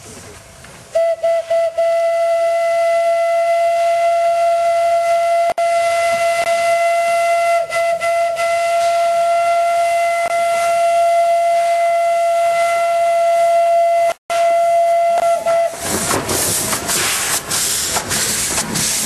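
Narrow-gauge steam locomotive's whistle: a few short toots, then one long steady blast of about fourteen seconds. The whistle stops and the loud noise of the train passing close by follows.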